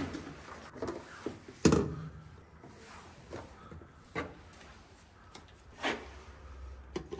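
Small plastic paint bottles being taken out of a plastic tool case and set down: a series of separate knocks and rattles, the loudest about one and a half seconds in.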